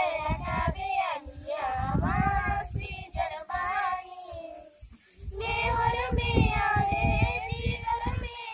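A group of schoolchildren singing a song together in chorus, voices only. The singing breaks off briefly around the middle and then comes back fuller, over a low rumble.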